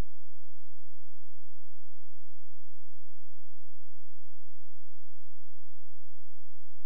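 Steady low electrical hum, unchanging, with no other sound.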